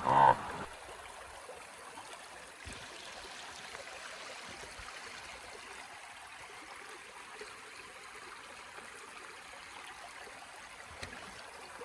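A small stream running, a steady gentle rush of water.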